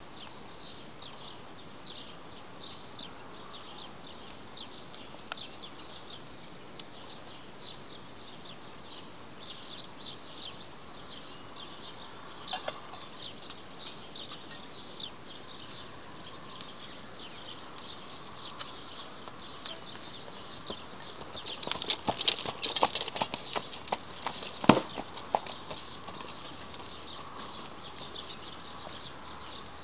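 Small birds chirping steadily in the background; from about 21 seconds in, a short run of a horse's hoofbeats and clatter, with one sharp knock near 25 seconds.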